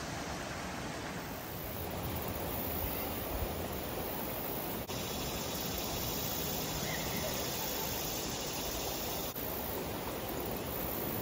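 Creek water rushing steadily, an even wash of noise with no breaks except two very brief dips.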